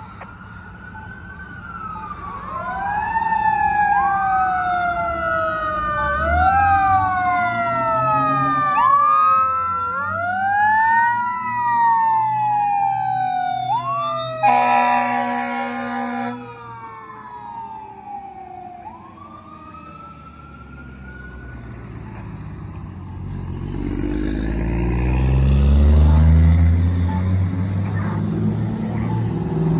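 2017 Pierce Enforcer fire engine's electronic wail siren sweeping up and down over and over, with a two-second air horn blast about fourteen seconds in. The siren fades after about twenty seconds, and a heavy vehicle's low engine rumble builds in the last several seconds.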